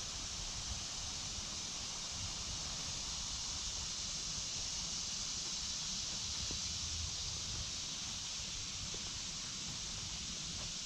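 Woodland ambience by a creek: a steady, even high hiss with a low rumble of wind on the microphone underneath.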